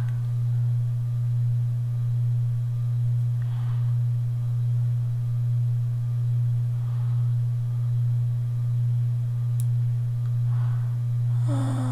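Steady low hum that swells slightly about once a second, with three faint soft sounds over it.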